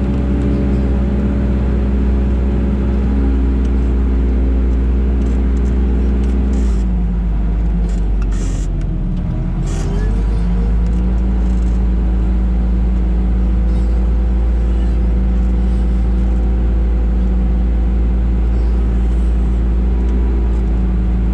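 Wheel loader's diesel engine running, heard from inside the cab. About seven seconds in its note drops, dips and climbs back up over the next three seconds, then holds steady again.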